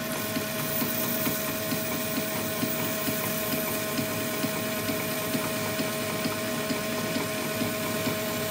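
Old South Bend metal lathe running with a steady hum and whine while sandpaper is held against the spinning steel part to smooth its turned outside diameter.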